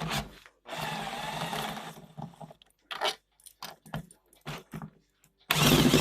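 Tools and metal parts being handled: a stretch of rattling and scraping, then scattered clicks and knocks, and a louder clattering stretch near the end.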